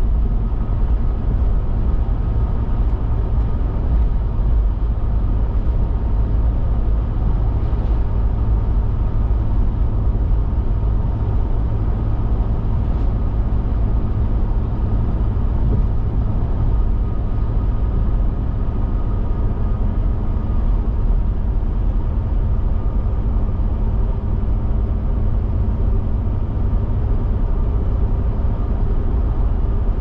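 Steady road noise inside a car cruising at highway speed: low tyre and engine rumble with a few faint steady tones over it, unchanging throughout.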